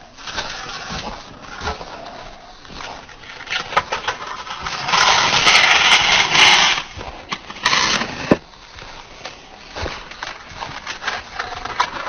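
Snow shovel blade scraping and pushing snow across a paved path, with a long loud scrape about five seconds in and a shorter one near eight seconds, among knocks of the blade.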